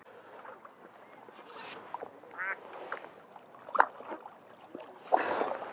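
A hooked mirror carp splashing at the surface as it is drawn over the landing net, in short bursts with a sharp splash near the end. A duck quacks a few times about two and a half seconds in.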